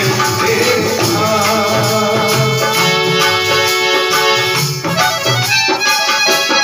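Instrumental passage of a Hindi devotional song: a nal drum beats a steady rhythm under jingling hand percussion, with long held melody notes in the middle of the passage.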